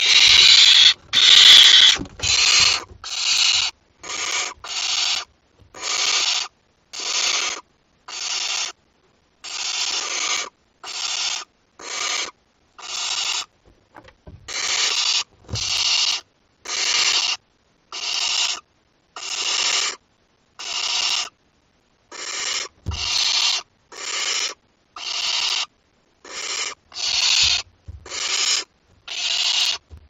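Barn owl owlets giving their hissing, snore-like food-begging calls: one rasping hiss about every second, the first two longer and louder than the rest.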